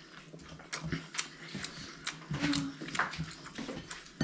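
Close-up eating sounds: chewing and lip smacking in a run of small wet clicks, with fingers working through rice in a bowl.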